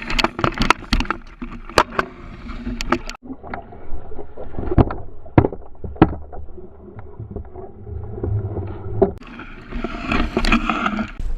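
Sharp knocks and clatter in a fishing boat while a small muskie is being landed, with a denser burst of noise about ten seconds in.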